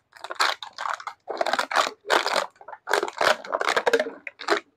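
Empty plastic bottles crackling and crunching underfoot as they are stamped flat, in a quick run of separate crushes about two a second. The bottles are being flattened so they pack densely into sacks for recycling.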